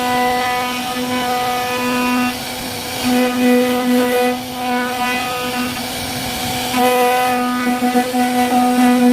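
Syfing CNC router spindle whining steadily as it carves wood, a single pitch with overtones. The whine and the cutting noise swell louder about three seconds in and again from about seven seconds on.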